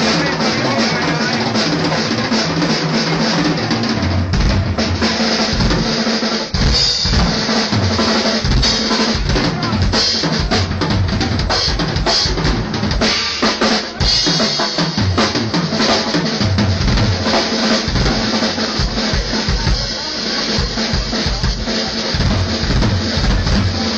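Live drum kit solo: a fast, dense, continuous run of bass drum and snare hits with cymbals.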